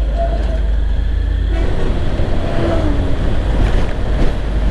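Wind buffeting the microphone over the running of a motorcycle on the road, a steady heavy rumble that turns rougher and louder about a second and a half in.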